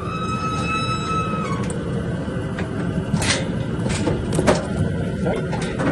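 Steel cattle chute and gates clanking a few times, over a steady low rumble, with a brief thin squeal that rises slightly during the first second and a half.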